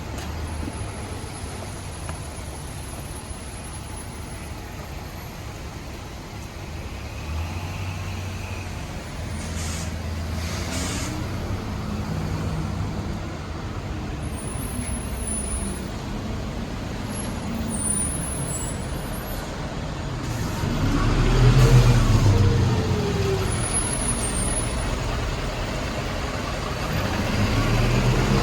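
Vehicles passing at a railway level crossing: a steady low rumble that builds, peaking about 21 to 22 seconds in with a hum that rises and then falls in pitch as one goes by.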